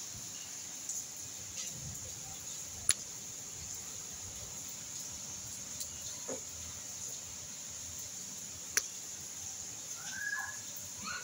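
Steady hiss with two sharp clicks, then a short animal call rising in pitch near the end.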